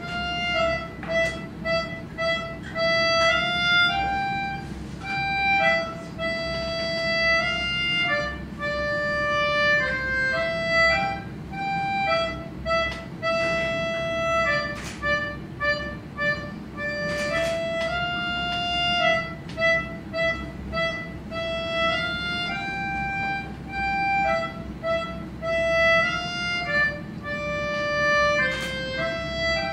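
Melodica playing a slow melody of single held notes, with a few light knocks now and then.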